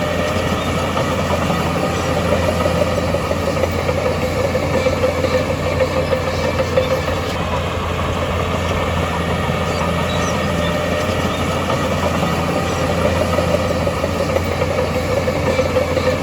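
Heavy earthmoving machine's diesel engine running steadily.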